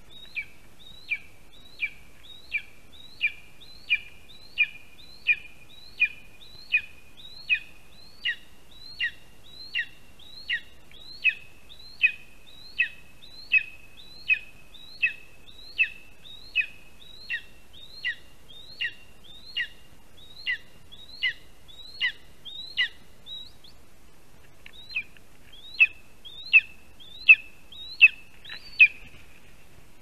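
Lesser spotted eagle giving a long series of sharp, high, down-slurred yelping calls, about three every two seconds, with a short pause a little past the middle and the loudest calls near the end.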